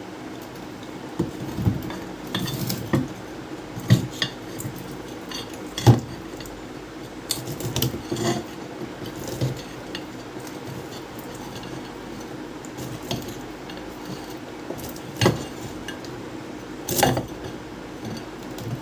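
Old ceiling fan humming steadily, with irregular metallic clinks and knocks over the hum.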